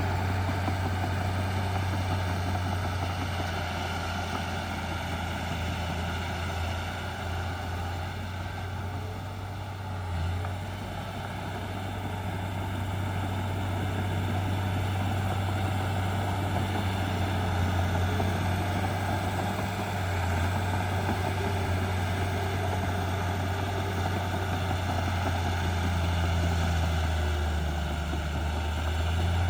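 Diesel engine of heavy earthmoving machinery running steadily with a deep, even drone, easing slightly about ten seconds in.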